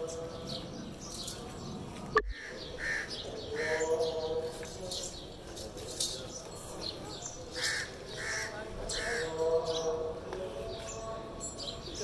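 Birds calling outdoors: one call repeated three times in quick succession, twice, over many short high chirps from small birds; a single sharp click about two seconds in.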